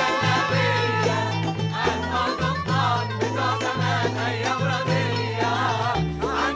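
Mixed Arabic choir singing an Egyptian popular song in unison, accompanied by keyboard with a steady bass line and hand percussion on darbuka and riq.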